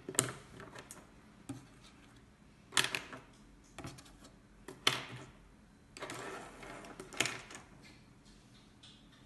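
Pens and markers clicking and knocking as they are handled and set down on a wooden table, a handful of sharp clicks a second or two apart, with a short stretch of pen scratching across a painted board near the middle.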